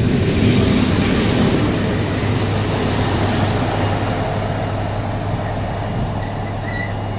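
Railway coaches rolling slowly past, wheels rumbling on the rails, then the DB class V100 (213 335) diesel-hydraulic locomotive drawing level with its engine running in a steady low drone. The rolling noise is strongest for the first couple of seconds and eases off after.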